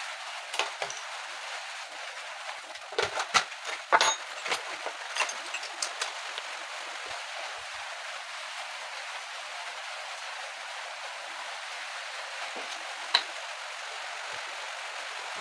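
Steady hiss of light rain, with a cluster of knocks and clinks about three to four seconds in and one sharp click near the end as hand tools are handled on the wooden rail.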